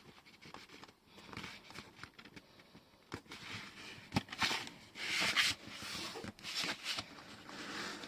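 Paper rustling and sliding in hands as a sheet is folded and creased into an envelope flap, in short bursts with a couple of light taps.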